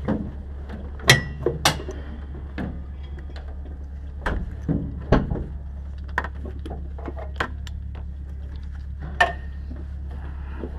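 Scattered clicks, knocks and clunks of a driver climbing out of a race car's cockpit, over a steady low hum.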